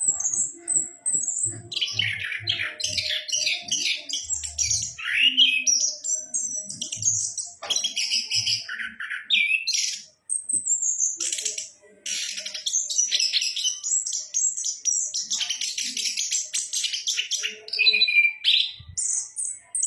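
Chestnut-capped thrush (anis kembang) singing a long, varied song of fast trills, sweeping whistles and rapid chattering phrases, pausing briefly twice in the middle.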